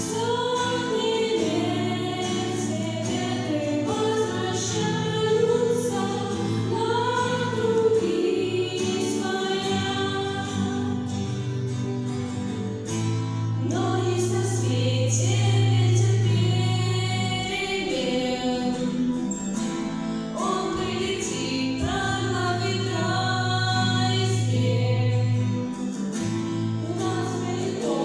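A song: singing over instrumental backing, with low bass notes held under long stretches of it.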